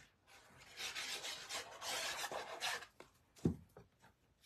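Glue bottle tip rubbed and scraped across paper, a dry scratchy rasp lasting about two seconds, then dying away.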